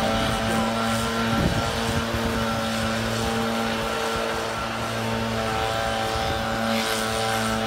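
Small two-stroke engine of a leaf blower running steadily at an even speed, with a constant droning tone and air rushing.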